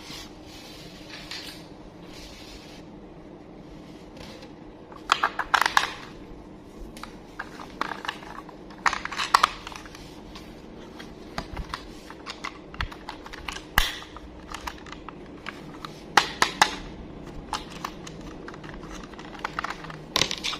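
Toy packaging being handled during an unboxing: scattered clicks, taps and crinkling rustles of plastic and cardboard, in several short clusters with pauses between them.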